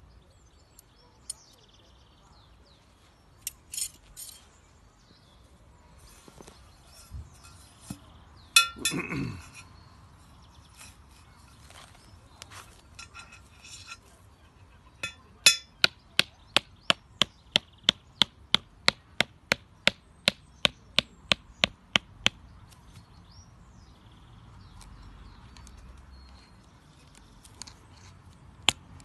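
Stainless steel trampoline anchor pegs clinking together as they are handled and fitted into their sleeve, then a mallet knocking a peg into the ground in a steady run of sharp strikes, about two and a half a second, starting about halfway through and starting again near the end.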